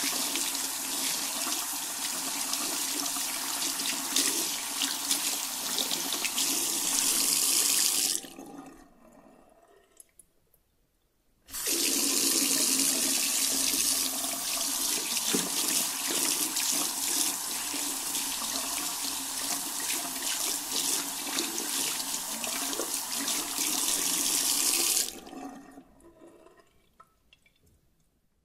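Tap water running into a washbasin while hands are washed and rinsed under it, with small splashes throughout. The water stops about a third of the way in and drips fade away, then it starts again abruptly a few seconds later and runs until it stops near the end, leaving a few drips.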